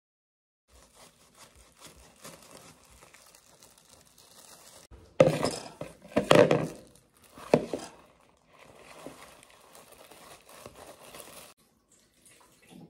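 Water running and splashing, with clinks of dishes, loudest in three bursts from about five to seven and a half seconds in.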